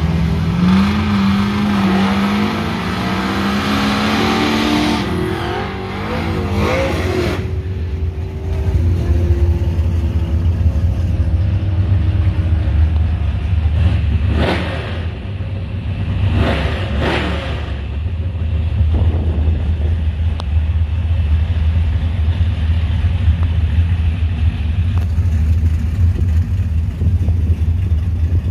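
6.0-litre LQ4 V8 of a Chevy S10 pickup rising in pitch in steps over the first several seconds, then a steady low rumble with two brief revs, one about halfway through and another a couple of seconds later.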